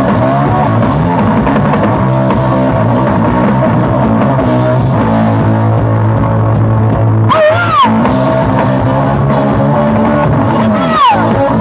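Live punk blues rock: electric guitar and drum kit playing loud, with two high swooping notes, one a bit past halfway and one near the end.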